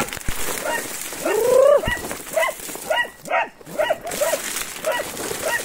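Hunting dogs barking in quick repeated barks, with one longer rising-then-falling bay about a second in: the dogs are baying quarry they have brought to bay, here a lesser anteater.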